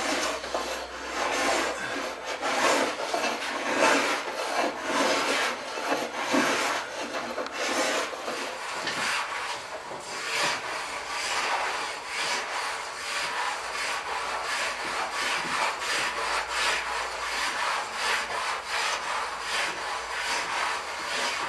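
Sauer & Steiner infill hand plane taking repeated short strokes across a hardwood tabletop, the blade shaving wood in a run of quick scraping swishes. This is the sound of smoothing tear-out around a hard knot where the grain reverses.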